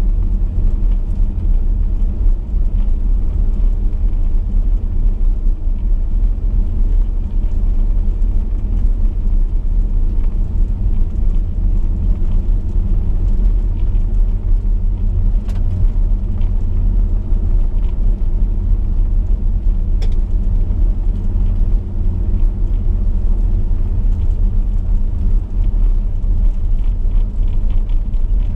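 Chevrolet V8 car cruising on a gravel road: a steady low rumble of engine and road noise, with a couple of brief sharp ticks about halfway through.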